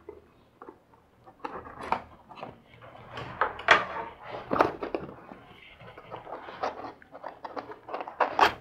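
Cardboard box being opened and unpacked by hand: an irregular run of scrapes, taps and rustles of cardboard and packaging, picking up about a second in.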